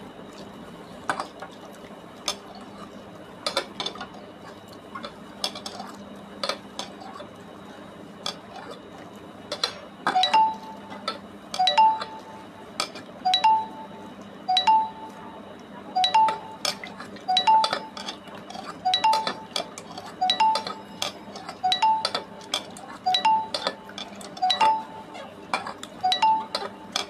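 Hand rubbing and squeezing jujubes in water in a steel pot, with scattered clicks at first. From about ten seconds in, a metal clink with a short two-note ring comes about every second and a half, in time with the hand's strokes against the pot.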